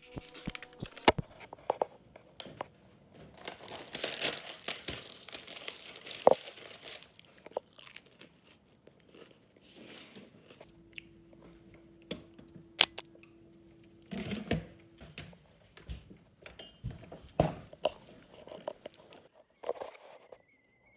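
Handling noise close to the microphone: irregular clicks, knocks and rustling as the camera and papers are moved about.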